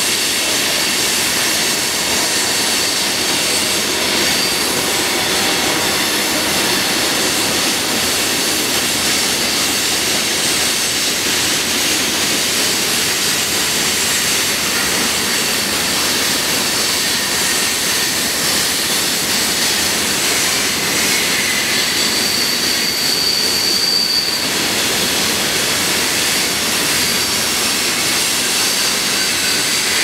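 Loaded freight cars of a rock train rolling through a curve, a steady rumble of steel wheels on rail with thin flange squeal. A louder, higher squeal comes in for a couple of seconds about two-thirds of the way through.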